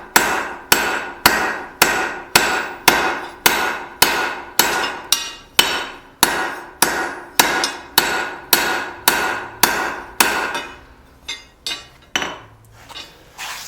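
Hand hammer striking hot steel on an anvil in a steady rhythm of about two blows a second, each blow ringing briefly: setting the rivet that joins the two halves of a pair of blacksmith's tongs. About ten seconds in the heavy blows stop and give way to a few lighter, uneven taps.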